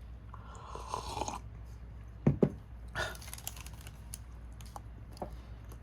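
Rustling and handling of a packaged snack, likely its plastic wrapper crinkling. There are two low thumps a little over two seconds in, another rustle about a second later, and scattered small clicks.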